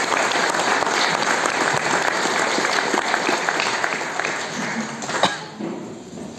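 Audience applauding, the clapping dying away about five seconds in, with one sharp knock as it ends.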